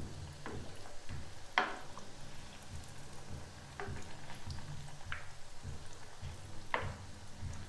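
Dalia (broken-wheat) patties shallow-frying in hot oil, sizzling steadily, with a few sharp clinks of a metal spoon against the pan as they are turned.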